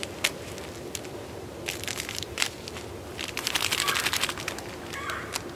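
Rustling and crinkling of a winter glove's fabric close to the microphone, heaviest for about a second near the middle, among scattered sharp crackles and clicks.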